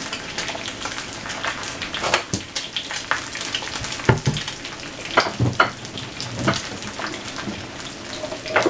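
Eggs frying in hot oil in a skillet: a steady sizzle with sharp crackles and pops, the loudest pops coming from about two seconds in to past the middle.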